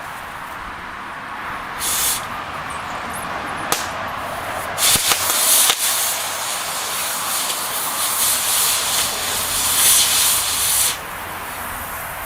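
Gas cutting torch hissing steadily, with a louder rush briefly about two seconds in and again from about five seconds until near the end as it cuts through rotted bolts. A couple of sharp pops or clicks come near four and six seconds.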